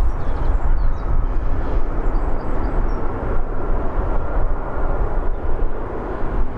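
Airbus A320-214's CFM56 turbofan engines at takeoff thrust during the takeoff roll, heard from behind as a loud, steady, deep rumble with a faint steady whine above it.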